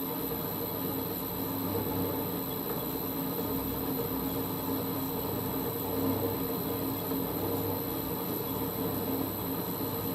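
Holbrook C8 toolroom lathe running steadily at low speed with a steady hum while a parting-off tool is fed slowly into the work.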